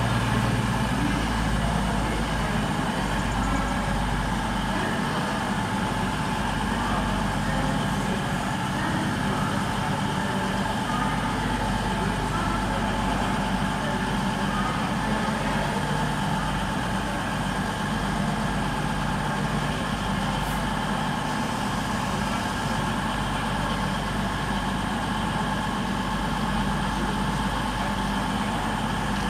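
CrossCountry Class 220/221 Voyager diesel multiple unit standing with its underfloor diesel engines idling: a steady low drone with constant higher tones over it.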